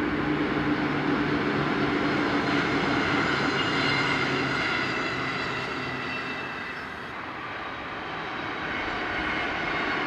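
Electric passenger train running past: a steady rumble with whining tones that slowly drop in pitch as it draws away. It fades about seven seconds in, and another train's sound builds toward the end.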